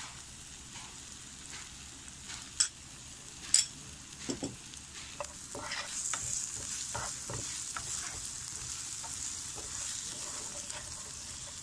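Chopped onions and tomato frying in oil in a non-stick pan, sizzling, while a wooden spatula stirs and scrapes them about the pan. Two sharp knocks, likely the spatula against the pan, stand out in the first few seconds, and the sizzle grows louder about halfway through.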